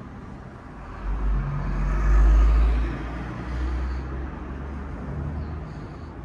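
A road vehicle passing by: a low rumble that swells about a second in, is loudest around two to three seconds in, then fades away.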